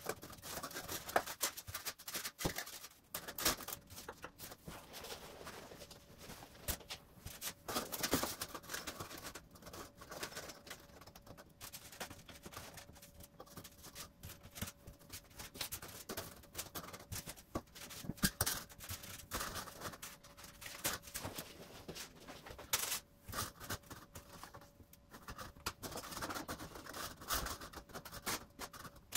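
White foam incline risers being handled and set down one after another on the layout board: irregular light taps, clicks and scuffs of foam against the board and against each other. A faint steady hum sits underneath.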